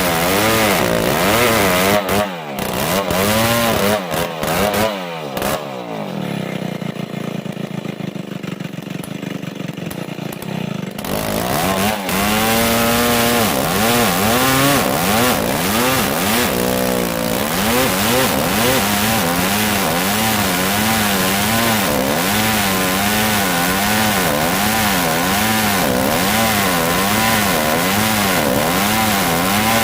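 Old chainsaw running at high revs while cutting dry merbau hardwood, its engine note rising and falling about once a second under load. About two seconds in it drops to a quieter, lower running for several seconds, then comes back up to full revs and keeps cutting.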